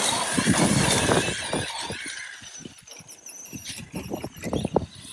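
Brushless electric motor and tyres of an Arma Fireteam RC basher car at full throttle: a loud, steady rushing whine that fades over the first two or three seconds as the car pulls away. It is followed by scattered knocks and clicks.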